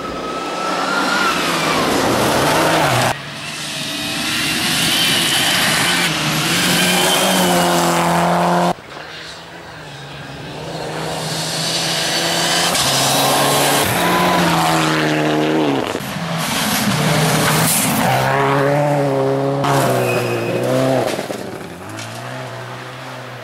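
Rally cars at speed on gravel stages, engines revving hard and dropping back again and again through gear changes, over the hiss of tyres and flung gravel. The sound changes abruptly a couple of times as one car's pass cuts to the next.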